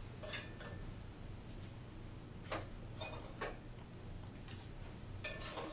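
A few light, scattered clicks and taps of a serving utensil against the rice cooker pot and small plates as cooked sweet potato chunks are dished out. One tap near the middle rings briefly.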